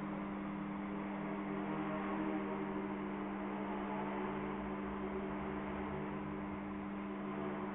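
Steady buzz of a small electric motor and propeller on an indoor foam aerobatic RC plane in flight: a few fixed hum tones over a hiss, holding even throughout.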